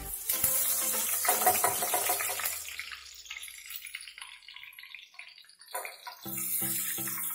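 Whole spices sizzling in hot oil in a pan. A bright hiss flares up just after the start and dies down after two or three seconds. Background music with a steady beat comes in near the end.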